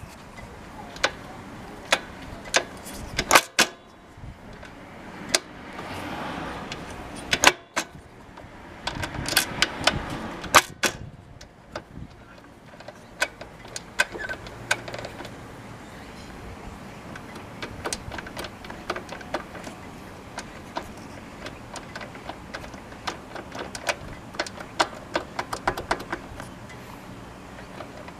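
Honda Little Cub transmission countershaft, its front sprocket removed, being rocked by hand: irregular metallic clicks and knocks as the shaft moves in its worn-out bearing, a sign of bearing failure.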